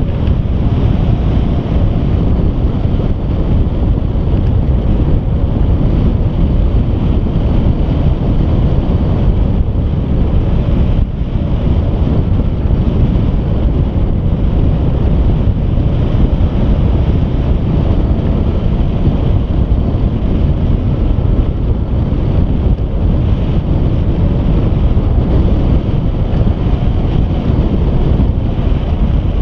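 Wind noise from the airflow of a hang glider in flight buffeting the microphone: a loud, steady rushing rumble, heaviest in the deep end.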